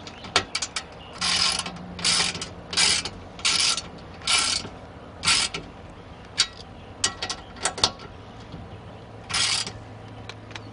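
Socket ratchet wrench clicking as it is worked back and forth, tightening nuts onto bolts: about six raspy back-strokes in the first five seconds and one more near the end, with sharp metal clicks between.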